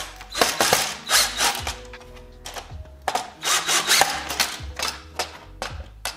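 Cordless drill driving screws into a plastic motorcycle fairing panel in short runs, the longest about half a second in and about three seconds in, over background music with a steady beat.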